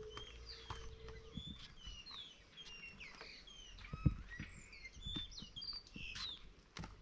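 Several birds chirping and singing: many short whistled notes and slurred calls overlapping. A few dull thuds of footsteps on the wooden boardwalk planks, the loudest about four seconds in.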